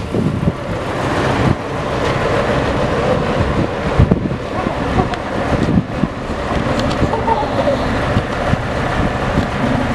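Concrete mixer truck's diesel engine running steadily as the truck moves off, with a couple of sharp knocks about four and six seconds in.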